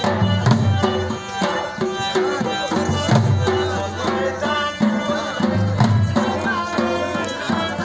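Live Pashtun attan dance music: dhol drums beating a steady, driving rhythm under a melody instrument.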